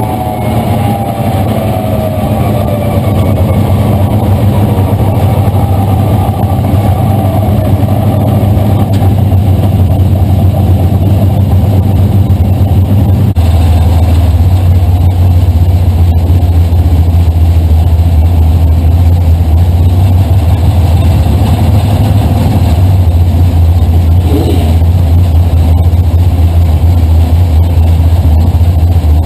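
Drag-racing Camaro's engine heard from inside the cockpit: its pitch falls over the first few seconds as the car slows, then it settles into a steady low rumble at low speed that gets louder from about halfway through.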